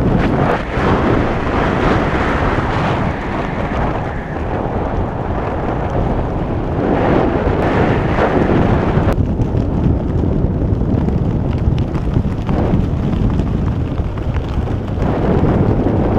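Wind rushing over the camera microphone during parachute canopy flight: a loud, continuous rumble that swells and eases, dropping somewhat about nine seconds in.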